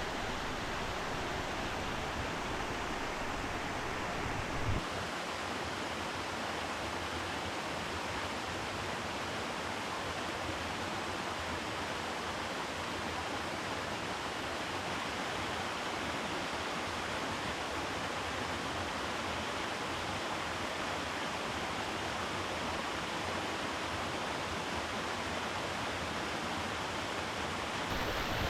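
Steady rushing of falling water from Tjaetaba Falls, an even unbroken noise. A brief low thump comes about five seconds in.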